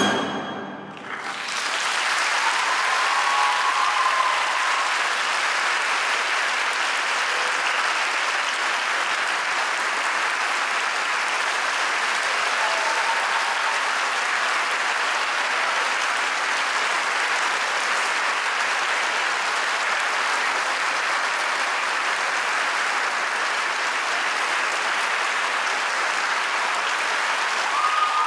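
An orchestra's last chord cuts off. After about a second of quiet, a large audience breaks into steady applause that keeps on at an even level.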